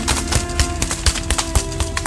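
Background music with held, steady notes, over a quick, irregular run of sharp clicks or taps, several a second.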